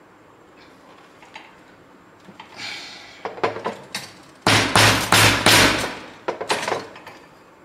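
A small hammer knocking a brass nut into a 3D-printed plastic block to seat it. A few light taps lead into a run of loud knocks about halfway through, and a couple more follow shortly after.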